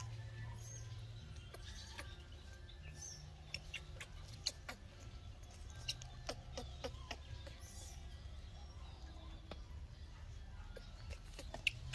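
Faint small clicks of a baby monkey suckling on a plastic milk bottle, over a low steady hum, with a few brief high chirps.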